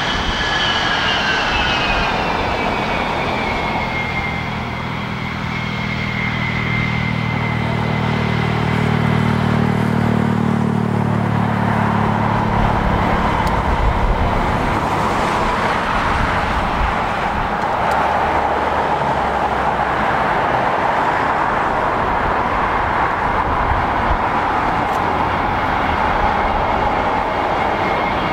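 NATO E-3A Sentry's four TF33 turbofans running at taxi power, a high whine falling in pitch over the first few seconds, then a steady jet rush that grows as the aircraft rolls past. A deep engine drone from heavy road traffic runs under it from about four to thirteen seconds in.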